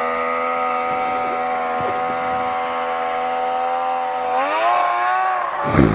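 Yamaha snowmobile engine running at a steady high pitch, then revving higher about four seconds in as the machine comes close. A brief loud rush near the end as it passes by.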